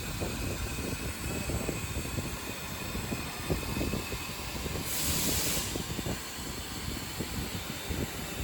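Ironwood IR-3015F 3000 W CNC laser cutting machine running while cutting metal, a steady mechanical rumble, with one short hiss about five seconds in.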